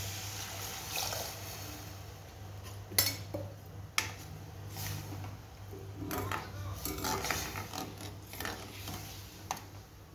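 A metal spoon clinking and scraping against a cooking pan while the curry is stirred, with a few sharp knocks against the rim and a busier clatter of stirring near the middle.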